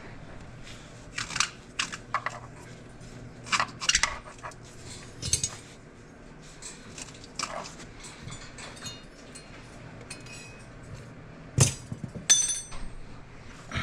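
Metal tools and exhaust parts clinking and clanking as they are handled. There is a sharp knock followed by a ringing metallic clang near the end.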